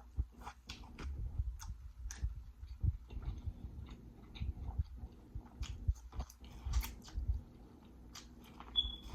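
A person chewing and biting food from a seafood boil, with a steady run of short mouth clicks and smacks.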